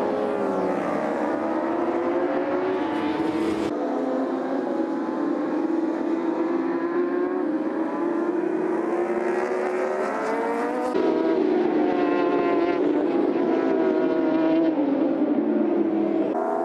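Racing superbike engines at high revs, several bikes together, the pitch climbing through each gear and dropping back at the shifts. The sound changes abruptly twice as one pass gives way to another.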